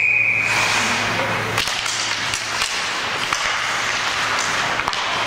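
Ice hockey play in an arena: a constant hiss of skates on the ice, broken by several sharp clacks of sticks and the puck. A steady high tone sounds for the first second and a half.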